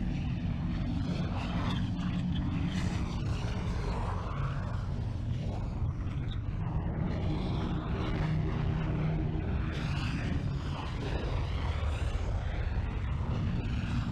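A steady low rumble with a noisy roar above it, continuous and unbroken.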